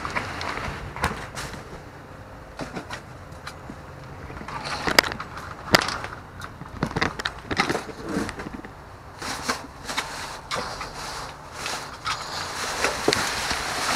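Plastic trash bags and cardboard boxes rustling, crackling and knocking as a dumpster is rummaged through, in irregular bursts that are busiest in the middle, over a steady low rumble.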